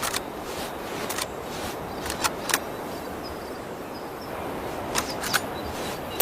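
Sharp metallic clicks from a Springfield M1903A1 bolt-action rifle, in two pairs about a third of a second apart, with a few fainter single clicks, over a steady background hiss.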